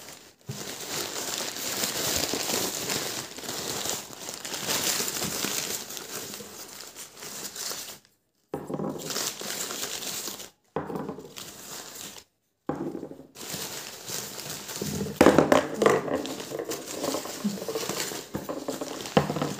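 Crumpled paper packing rustling and crinkling as clay cups are unwrapped from a cardboard box. There are a few louder knocks about three-quarters of the way through as the cups are set down on the wooden table.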